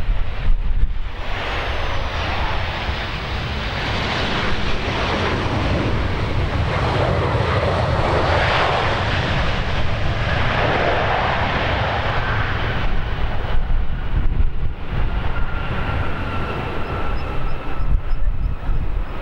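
Boeing 737-800's CFM56 jet engines making a loud rushing roar that swells for about ten seconds and then eases off, with a whine that falls slowly in pitch in the second half. Gusty wind rumbles on the microphone underneath.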